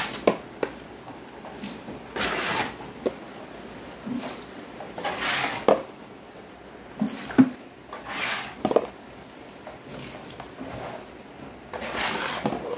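Floodwater being scooped off a tiled floor with a plastic pan and tipped into a plastic bucket: four splashing swishes about three seconds apart. Between them come sharp knocks of plastic.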